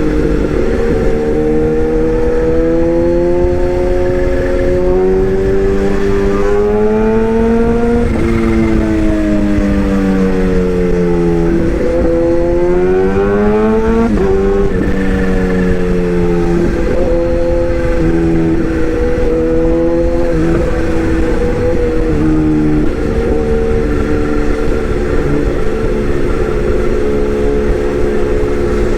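Excavator diesel engine running, its pitch rising and falling slowly a few times in the first half, then holding steady.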